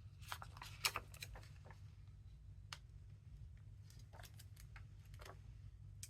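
Faint clicks and rustles of rubber and clear stamps and their acrylic block being picked through and handled on a craft table, the sharpest click about a second in, over a steady low hum.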